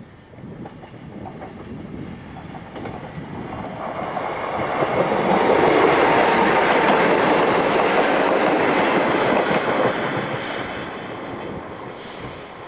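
Class 158 diesel multiple unit passing: the running of its engines and wheels on the rails grows as it approaches, is loudest for a few seconds as it goes by about five seconds in, then fades as it runs away.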